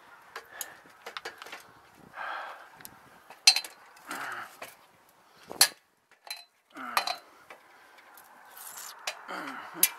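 Aluminium extension ladder clanking and clinking as someone climbs it, gloved hands and a cordless drill knocking against the metal rungs. Irregular sharp clanks, the loudest about three and a half seconds in.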